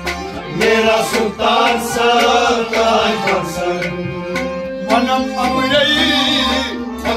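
Sufi devotional music: a voice singing over a held drone and rhythmic hand-drum strokes.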